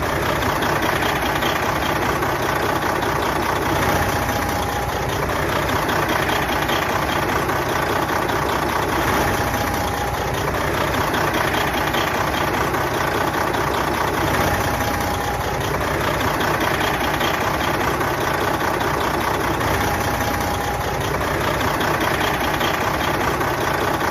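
Big truck diesel engine idling steadily, with a faint high whine that comes and goes about every five seconds.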